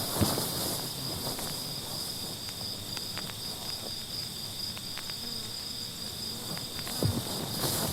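Crickets chirring in a steady high trill, with a few faint clicks; hoof-like knocks come back in near the end.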